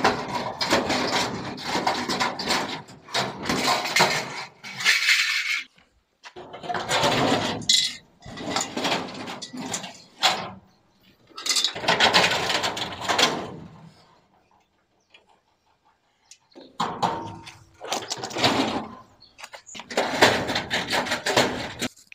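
Steel drawers of an old metal cabinet being pulled out and handled, metal scraping and rattling along the runners in several bursts of a few seconds each, with a silent break of about two seconds midway.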